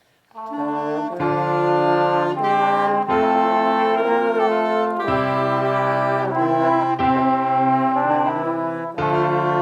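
Brass music begins a moment in, playing loud, sustained chords, with the bass note shifting about every two seconds.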